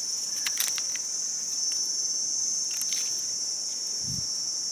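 Steady, high-pitched insect chorus, with a few short crackles of hands working in dry leaf litter as a mushroom is picked, and a soft low thump about four seconds in.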